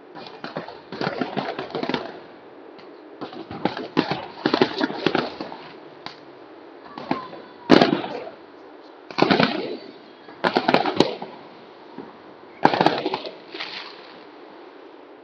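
Fireworks going off overhead: irregular volleys of crackling bangs, in groups every second or two, with one sharp single bang about eight seconds in.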